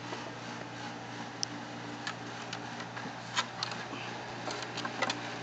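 A dog's claws clicking irregularly on wooden deck boards as it walks on a leash, a few scattered ticks, more of them in the second half, over a steady low hum.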